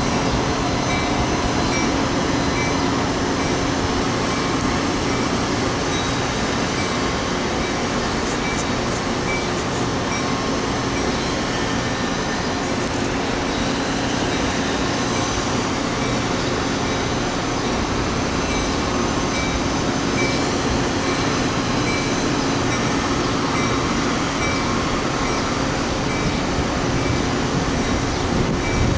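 Metra commuter train with an F40PHM-2 diesel locomotive standing at the platform, giving a loud, steady rumble and hum.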